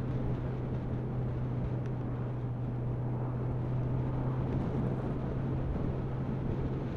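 Motorcycle engine running steadily at cruising speed, a constant hum under wind and road noise.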